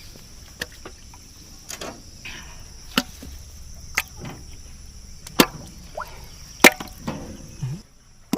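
Sharp, irregular cracks or knocks, about seven over several seconds, over the steady high drone of crickets that cuts out near the end.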